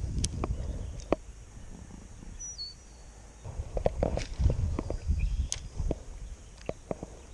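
Wind buffeting the microphone in gusts, with scattered light clicks and a short high two-note bird chirp about two and a half seconds in.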